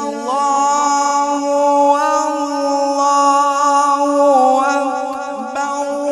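A male Quran reciter (qari) holding one long, drawn-out note in melodic tilawat, with no break for breath. The pitch dips and rises as it begins, then steps a few times along the held note.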